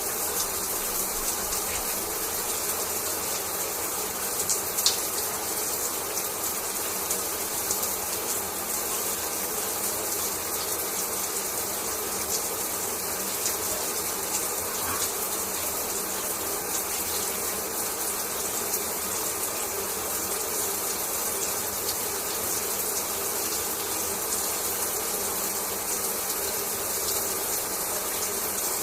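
Shower running: water spray falling steadily as an even hiss, spattering with small irregular ticks.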